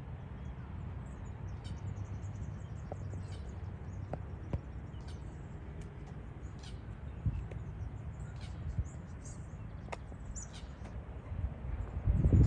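Small birds chirping, many short high calls scattered throughout, over a steady low rumble; a loud low rumble bursts in at the very end.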